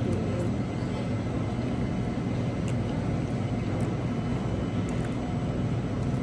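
Steady low mechanical hum and rumble of a shop interior's machinery and ventilation, with a few faint clicks.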